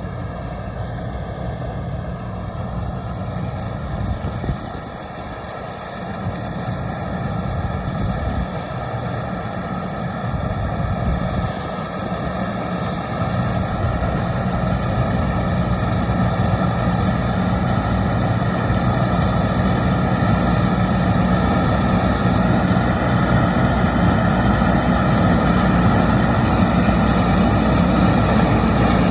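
Diesel engines of heavy farm harvest machinery running steadily, with a constant whine over the rumble, growing gradually louder.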